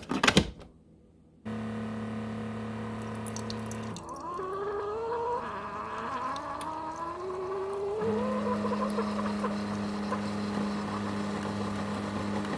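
Coffee maker brewing: a short knock, then a steady humming pump, with liquid streaming into a cup between about four and eight seconds in, its pitch rising as the cup fills.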